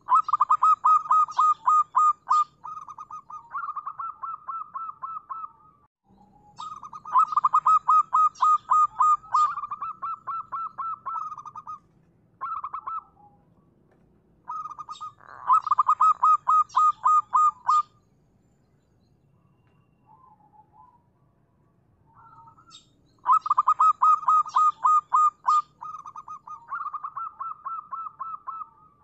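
Zebra dove (perkutut) cooing: repeated phrases of rapid staccato notes, each lasting several seconds and separated by short pauses, about four long phrases with a couple of brief fragments between them.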